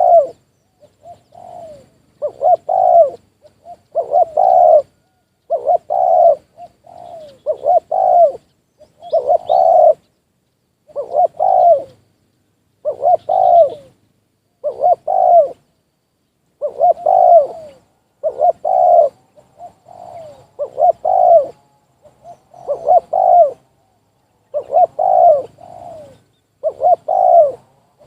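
Spotted dove (tekukur) cooing over and over, a short phrase of several coo notes roughly every two seconds, loud and close, with one longer pause near the middle.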